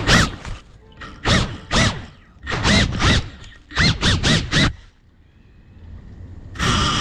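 A crashed FPV quadcopter's motors revving in about seven short bursts, pitch sweeping up and down, with its propellers catching leaves and grass in the undergrowth. After a short lull, a longer steady burst starts near the end.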